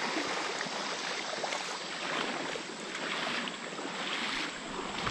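Footsteps walking over a sandbar, soft crunches in damp sand, over a steady outdoor hiss.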